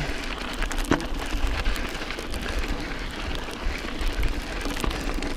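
Mountain bike tyres crunching over a loose, rocky gravel trail, with frequent small clicks and knocks from stones and the bike's frame, and a sharper knock about a second in. A low wind rumble on the microphone runs underneath.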